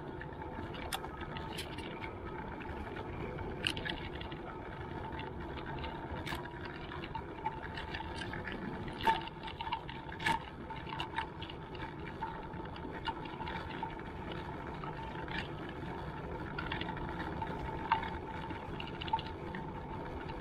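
Electric mobility scooter running steadily along a sealed path: a constant motor whine over rolling tyre and path noise, with scattered sharp clicks and knocks from bumps in the surface.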